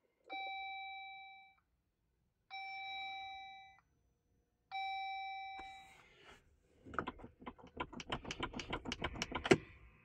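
Jeep's dashboard warning chime sounding three times, each a steady ding fading over about a second. Then, about seven seconds in, a rapid run of sharp regular clicks, about six a second, that grows louder and ends with one sharp click.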